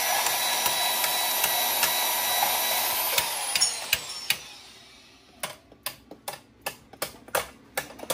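Portable band saw running as it cuts through stainless steel pipe, then the motor winding down, its whine falling in pitch. After that comes a run of sharp knocks and clicks, roughly two a second, as the cut pipe is fitted into place on the bike.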